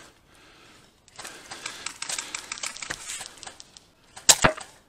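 Airsoft guns firing in rapid bursts, a quick run of clicks and pops for a couple of seconds, followed near the end by a loud, sharp crack.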